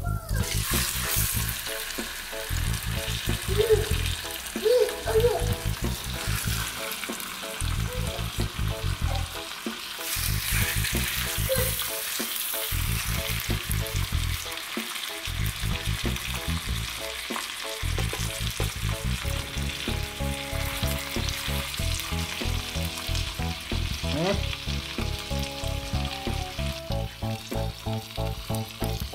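Whole fish sizzling as they fry in melted butter in a non-stick pot, the sizzle flaring up about ten seconds in. A low steady beat runs underneath.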